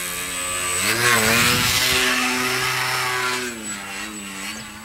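Radio-controlled aerobatic model plane's motor and propeller passing overhead, a steady pitched drone. About a second in it rises in pitch and grows louder, and after about three and a half seconds it drops in pitch and fades as the plane moves away.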